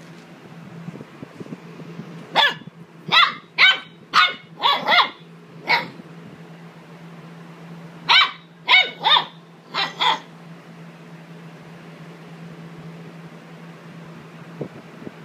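Great Dane puppy barking: a run of about seven short, high barks, then after a short pause about five more. A faint steady hum sits underneath.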